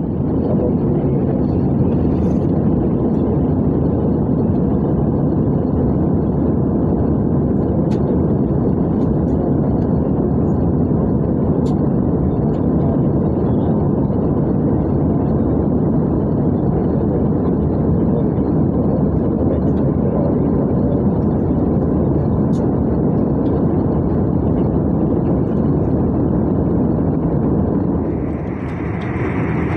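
Steady cabin noise of an Airbus A320 in flight, heard from a window seat over the wing: an even rushing drone from the engines and airflow, strongest low down, with no change in level.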